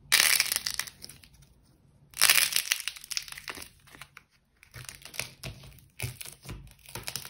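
Dry clay coatings cracking and crackling as they are squeezed and crushed by hand, in two loud bursts, then smaller crackles as the broken clay is pressed into slime.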